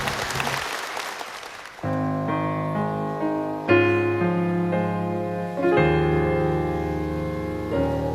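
Applause dies away, then about two seconds in a piano begins slow, held chords, a new chord roughly every two seconds: the introduction to a ballad before the singing comes in.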